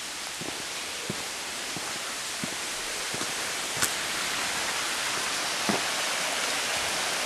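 Steady rush of a small mountain stream and waterfall, growing slowly louder as it is approached on foot, with soft footsteps on the trail and a couple of sharper clicks.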